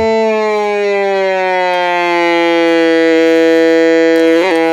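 Vintage 'Superior' organ-style toy synthesizer holding a single note while its tune knob is turned, the pitch sliding slowly and smoothly down. A short wobble comes near the end.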